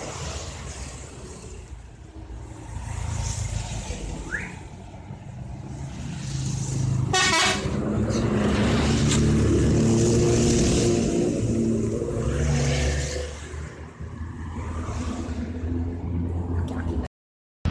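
Bus 'telolet' multi-tone horn playing its stepping melody for about five seconds, starting about eight seconds in, over the rumble of a bus engine. The sound cuts out abruptly near the end.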